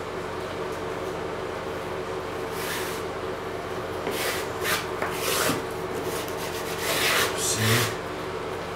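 Paintbrush scrubbing wet liquid waterproofing membrane onto fiberglass mesh tape: a few short rubbing strokes from about three seconds in, the loudest near the end, over a steady low hum.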